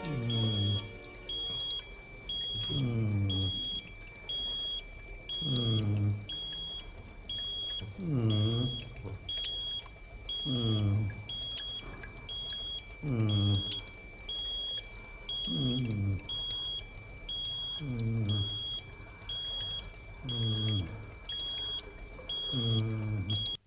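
Bedside patient monitor beeping steadily, about three short high beeps every two seconds. Under it, a louder low sound that falls in pitch repeats about every two and a half seconds.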